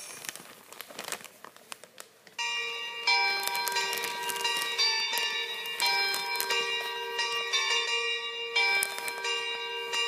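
Faint clicks for the first couple of seconds, then bell-like chimes playing a tune, one held note after another.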